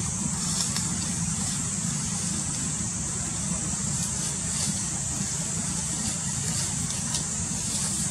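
Steady outdoor background noise: a constant high hiss over a low rumble, with a few faint ticks.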